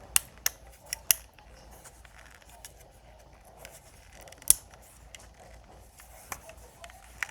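Plastic clicking and creaking as the pull-it arm of a Bop It toy is twisted and worked loose by hand: a cluster of sharp clicks in the first second, scattered clicks after, and the loudest click about four and a half seconds in.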